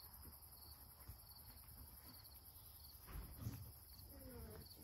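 Near silence, with crickets chirping steadily at a regular pace and a high insect hum behind them. A soft thump comes about three seconds in.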